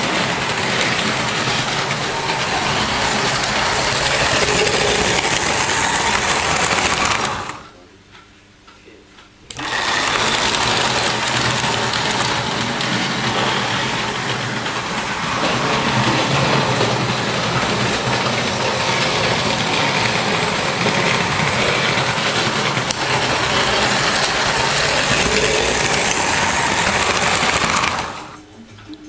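Märklin model train running on its track: a steady motor whir and wheel rattle. It breaks off for about two seconds a quarter of the way in and stops near the end.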